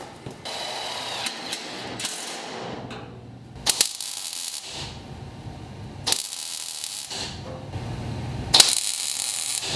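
MIG welder tack-welding sheet-steel firewall panels: several short bursts of crackling arc, each about a second long, with short pauses between tacks.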